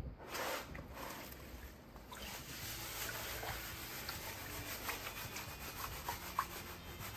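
Wet gravel and sand rattling and grinding in a plastic classifier shaken under water in a tub, with light water sloshing; a few louder swishes in the first couple of seconds, then a steady gritty rattle.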